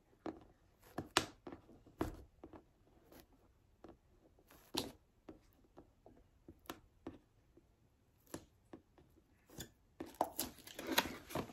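Packaging being worked open by hand: scattered clicks, taps and short scrapes of a cardboard box and its plastic, growing busier near the end.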